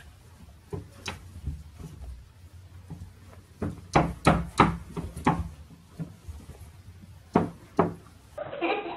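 Sharp knocks and taps from a cat and a fluffy white puppy scuffling on a cloth-covered window sill: one about a second in, a quick run of several around four to five seconds in, and two more near the end.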